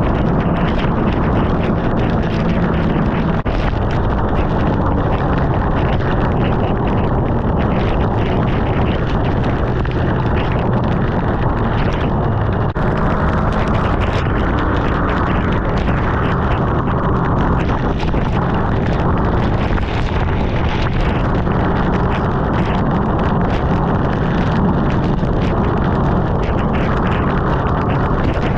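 Sport bike ridden at speed: a steady engine drone under heavy wind buffeting on the microphone.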